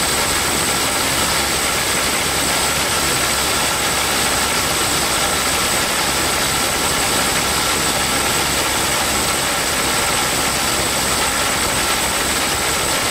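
Ryobi One+ HP brushless impact driver hammering without letup at a nut torqued to 500 foot-pounds: a loud, steady rattle of rapid impacts with a thin high whine over it. The nut budges only a little and turns really, really slowly.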